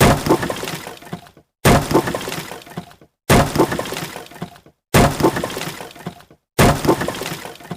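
A sound effect of something breaking, played five times about one and a half seconds apart: each time a sudden crash, then a crackling clatter of pieces that dies away within about a second and a half.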